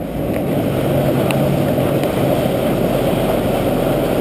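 Small motorboat under way: a steady rush of wind and water past the microphone with the outboard motor's drone beneath it.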